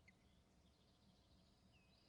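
Near silence: faint outdoor background with two short, faint bird chirps, one near the start and one near the end.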